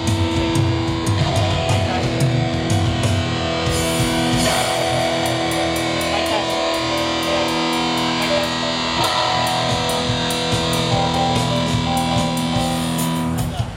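Electric guitar played through an amplifier during a band's sound check, with long sustained chords ringing out.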